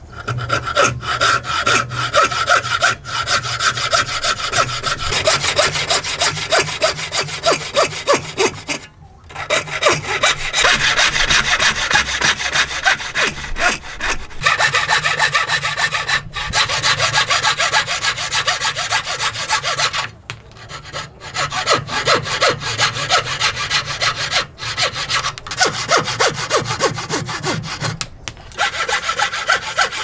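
Wooden frame saw cutting into a square hardwood post to form a joint: quick back-and-forth sawing strokes, broken by three short pauses.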